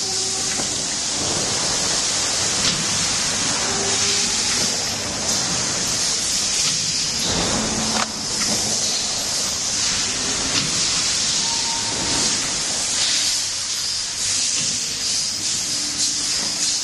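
Automatic cup filling and sealing machine running: a loud, steady hiss over a low hum, with now and then a click or knock as its pneumatic filling heads work.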